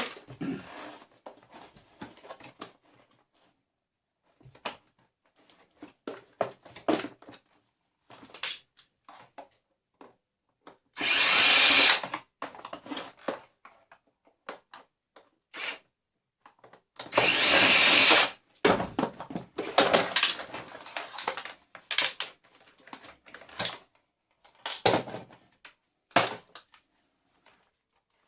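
A hand-held power drill runs in two short bursts of about a second each, among scattered clicks and knocks of plastic and metal parts being handled as a vacuum cleaner is taken apart.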